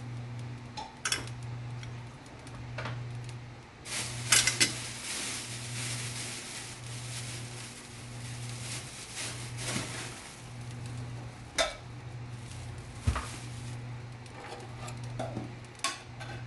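Scattered clinks and knocks of a ceramic plate and rustling of thin samosa pastry sheets as they are handled and folded, loudest a little after four seconds in. Under it runs a steady low hum that swells about once a second.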